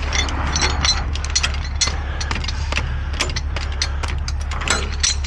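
Steel tie-down chain being pulled out and handled, its links clinking and rattling in a run of irregular sharp clicks over a steady low engine hum.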